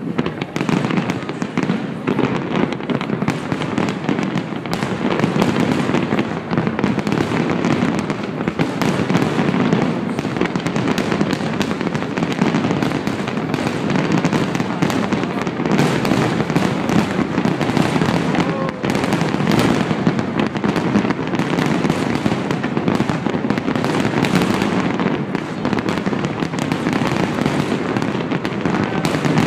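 Fireworks display: a dense, continuous barrage of bangs and crackling shells that never lets up.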